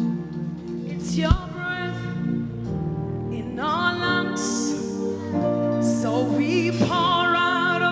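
Gospel worship music: held instrumental chords under a solo voice singing long, sliding phrases that come in about a second in.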